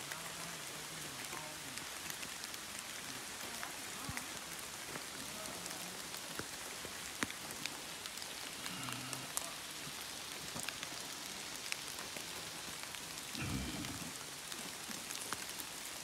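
Steady rain falling, with scattered sharp hits of nearby drops and a brief low rumble about thirteen seconds in.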